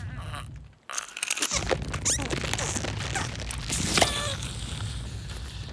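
Busy cartoon sound effects: a jumble of scrapes, rustles and clicks with a few short squeaky glides, after a brief drop-out a little under a second in.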